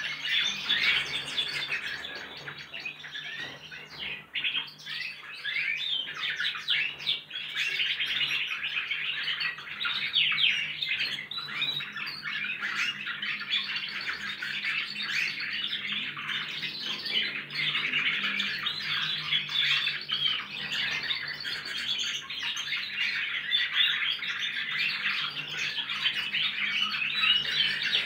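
Several young crossbred goldfinches practising their song together: a dense, continuous chorus of rapid twittering and warbling notes. The young birds are still learning their song, some of them with canary-style phrases.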